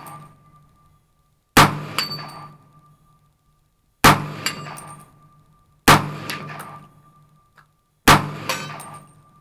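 Four rifle shots from an AR-15, about two seconds apart, each followed about half a second later by a metallic clang that rings on for a second or more, as of a bullet striking a steel target downrange.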